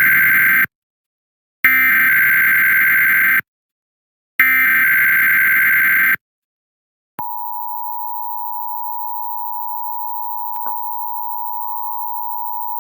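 Emergency Alert System SAME header: three bursts of raspy digital data tones, about two seconds each with short silent gaps between them, the first already under way. About a second after the last burst, the EAS two-tone attention signal starts and holds as a steady dual tone.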